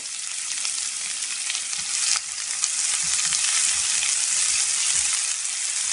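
Chopped onions sizzling in hot oil in a pan, with a spatula stirring them through the middle with soft knocks against the pan.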